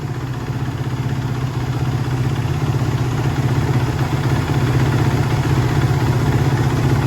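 2015 Kawasaki KX450F's single-cylinder four-stroke engine idling steadily, growing slightly louder over the few seconds; a strong, even idle.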